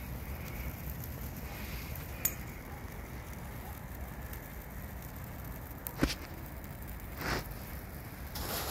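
Fire of evergreen branches burning in a perforated metal barrel, crackling with a few sharp pops: one a little after two seconds in, a loud one about six seconds in, and more near the end.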